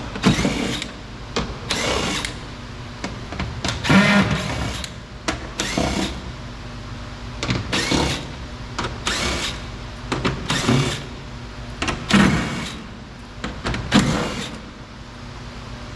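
Electric screwdriver or cordless drill-driver running in about a dozen short bursts, a small motor whining briefly each time it backs out one of the door's screws.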